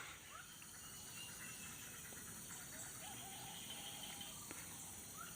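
Faint outdoor ambience: a steady high drone of crickets or other insects, with a few soft, short rising bird chirps.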